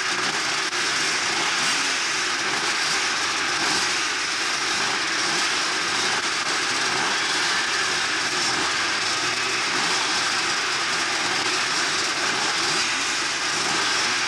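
Dozens of motocross motorcycles running together at the start gate, a dense din of many overlapping engines with pitches that keep wavering up and down as riders blip their throttles while waiting for the start.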